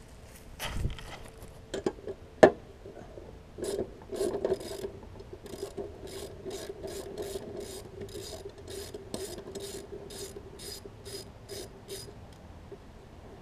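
A socket ratchet clicking in quick, even strokes, about three a second, as the 9/16 blade bolt of a push mower is unscrewed. A few sharp knocks come before it, the loudest about two and a half seconds in.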